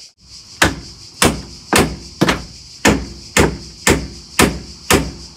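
Hammer blows struck in an even rhythm, about two a second, beginning about half a second in.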